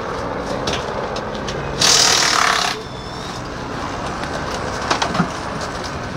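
Rally car service work: a steady mechanical hum, with a loud hissing burst just under a second long from a pneumatic air tool about two seconds in, and a couple of short metallic knocks near the end.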